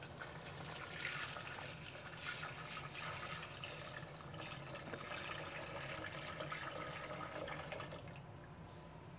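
Water poured in a steady stream from a plastic container into a wide metal pot, splashing into the fried tomato, onion and chile base as the broth for a soup is added. The pouring dies away near the end.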